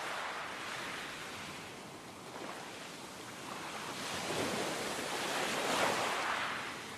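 Sea surf washing against the shore, a steady rush that swells to its loudest about six seconds in and eases toward the end.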